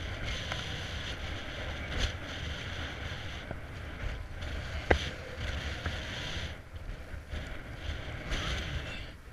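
Wind buffeting an action camera's microphone: a gusty low rumble and hiss that rises and falls. A small click comes about two seconds in and a sharp knock, the loudest sound, just before five seconds.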